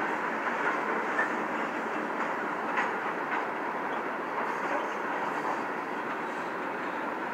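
Freight cars (hoppers and tank cars) rolling past: a steady noise of wheels on rail, with a few faint clicks.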